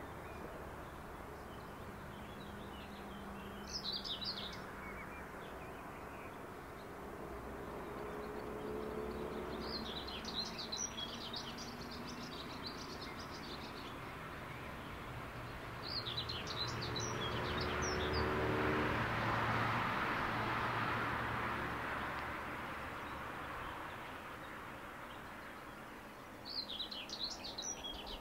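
Small songbirds singing in four short bursts of high chirps over the low rolling noise of a passenger train of Intercity coaches running round a curve. In the second half a broad rushing noise swells and then fades.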